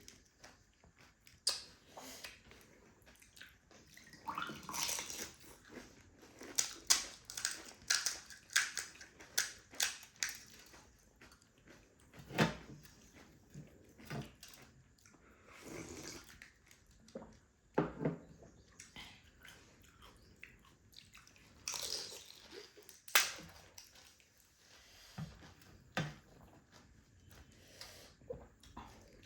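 A person eating pani puri close to the microphone: irregular bites and chewing, with crisp puri shells cracking.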